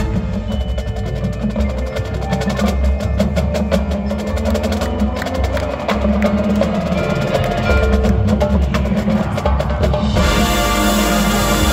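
Marching band percussion feature: rapid, dry clicking strikes over sustained low tones. About ten seconds in the clicking stops and sustained wind chords take over.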